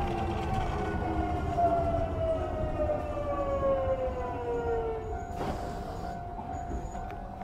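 Kintetsu 1020-series electric train on the move, its inverter-motor whine falling steadily in pitch as the train slows, with a steady higher hum alongside over low running rumble. A short burst of hiss comes about five seconds in, after the falling whine dies away.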